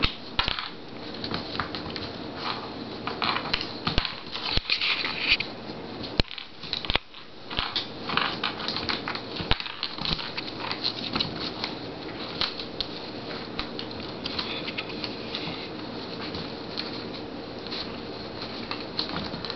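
A West Highland white terrier puppy scrabbling and pouncing on a hardwood floor as it worries a Milk-Bone biscuit: a quick, irregular run of claw clicks and light taps, with two sharper knocks in the first several seconds.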